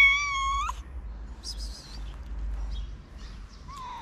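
Cat meowing: a drawn-out meow ends less than a second in, and a short, slightly falling meow follows near the end.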